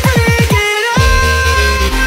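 Electronic dance music: a fast roll of kick drums under a rising synth line breaks off about half a second in. A heavy sustained bass drop hits about a second in.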